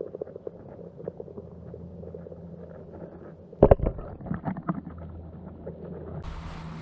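Muffled low rumbling with scattered light clicks, and a cluster of louder knocks about three and a half seconds in.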